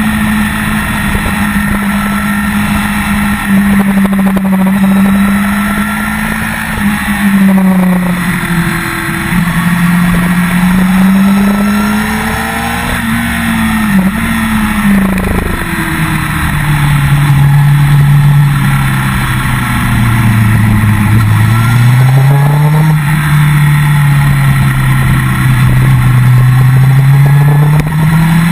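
Motorcycle engine at speed, heard from an onboard camera: its note holds, drops several times and climbs back as the rider works the throttle and gears through bends. Steady wind rush runs under it.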